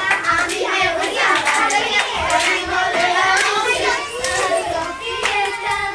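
Several children's voices singing and calling over one another, with repeated hand claps.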